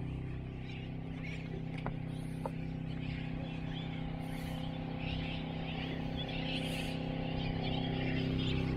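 A boat's generator running with a steady low hum, under the constant chatter of many birds calling.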